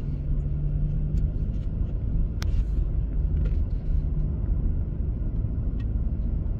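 Low, steady rumble of a car's engine and tyres heard from inside the cabin while driving slowly, with a steady hum for the first couple of seconds and a few faint ticks.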